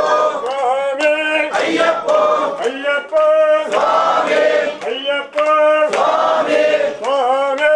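A crowd of men chanting loudly in unison, calling the same short phrase over and over. Each call rises in pitch and then holds a note.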